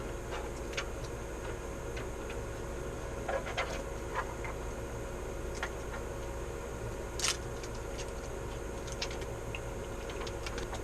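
Scattered light clicks and rustles of a computer monitor and its packaging being handled while unboxing, the sharpest click about seven seconds in, over a steady background hum.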